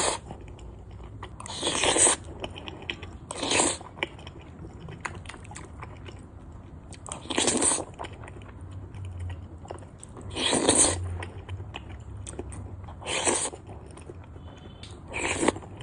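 Close-miked mukbang eating of yuxiang (fish-flavored) eggplant over rice: six loud mouthfuls two to four seconds apart, with soft wet chewing clicks in between.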